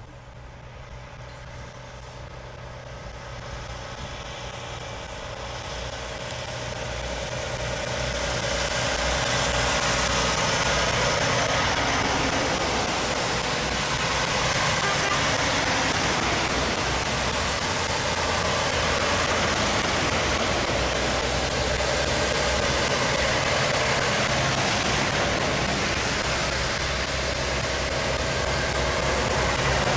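A line of semi-trucks passing one after another on a wet road: diesel engines running over a steady hiss of tyres through water. It grows louder over the first ten seconds or so as the trucks come close, then holds steady.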